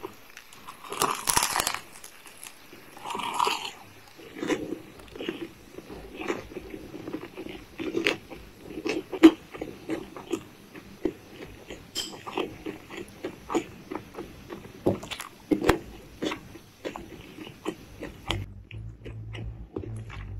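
Close-miked crunchy bite into breaded fried chicken about a second in, and a second crunch about two seconds later. Then chewing with many wet mouth clicks and smacks.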